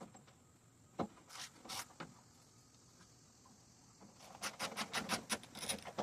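Tools working the Torx bolts out of a tailgate latch plate: a sharp click about a second in and a couple of scraping strokes, then from about four seconds a fast, even run of clicks, about seven a second, of a hand ratchet turning the bolts.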